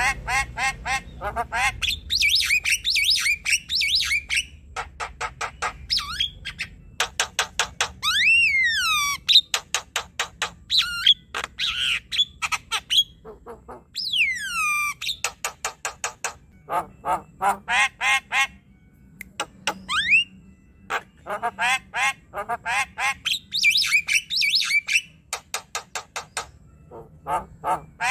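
Javan myna singing a long, varied chattering song: runs of rapid, harsh clicking notes broken by a few whistled notes that swoop in pitch, about eight and fourteen seconds in.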